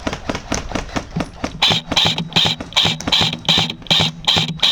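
Background music with a steady beat: quick even ticks that give way, about a second and a half in, to heavier beats over a held low note.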